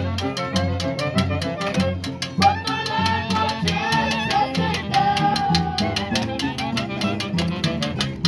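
Andean folk orchestra playing live: saxophones, clarinet, violin and harp over a drum kit beating a fast, even rhythm. About two and a half seconds in, the winds take up a melody with long held notes.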